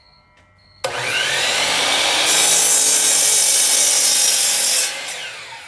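DeWalt DWS779 12-inch sliding miter saw starting about a second in, its motor whine rising as the blade spins up. The blade then cuts through a 2x4 for about two and a half seconds. Near the end the trigger is released and the motor winds down with a falling whine.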